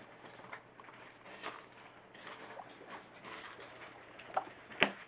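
Newborn Newfoundland puppies nursing, making small squeaks and grunts with soft shuffling against the bedding, and one sharp knock near the end.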